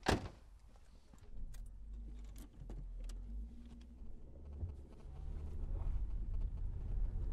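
A car door shuts with a loud thud, followed by a few sharp clicks and rattles. Then the car's engine starts and runs with a low rumble that grows louder toward the end.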